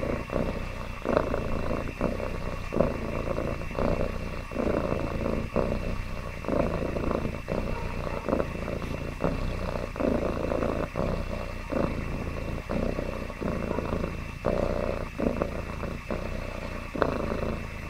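Domestic orange tabby cat purring contentedly close up, a steady low purr that swells and breaks in a regular rhythm with each breath in and out.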